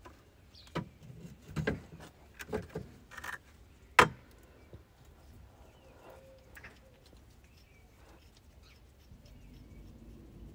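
A series of sharp knocks and clunks as a rear suspension control arm is maneuvered into the subframe of a BMW E46 Compact, the loudest about four seconds in, then quieter handling with faint bird chirps.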